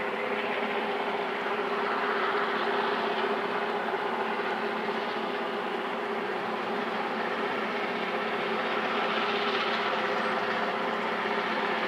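Train approaching from a distance: a steady engine drone with a low hum, growing slightly louder.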